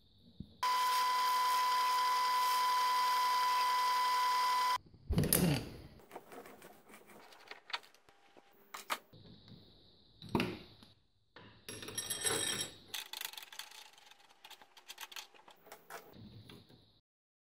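A steady, high-pitched whine lasts about four seconds. It is followed by scattered clinks and clatters of metal tools and parts being handled on a metal lathe: a tap wrench, then a spanner at the change gears.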